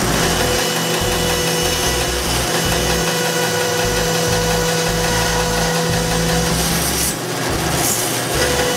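Bandsaw cutting the profile of a curly maple block laminated to a purpleheart sole: a steady motor hum under the blade's rasping hiss through the wood, dipping briefly about seven seconds in.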